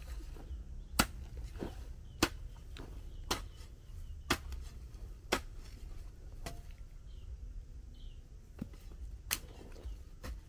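Sharp knocks or taps, roughly one a second for the first six seconds, then one more late on, over a low steady rumble.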